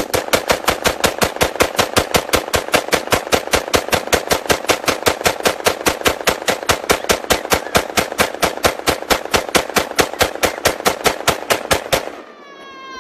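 A .223 AR-style rifle firing rapidly at about five shots a second, roughly sixty shots in a row, emptying a 60-round Magpul magazine. The fire stops about a second before the end, and a brief falling tone follows.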